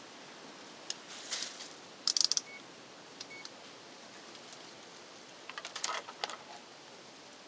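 Handling noise: scattered light clicks and clatters of tools and parts being handled, a sharp cluster of clicks about two seconds in and another run near the end, with two faint short high beeps in between.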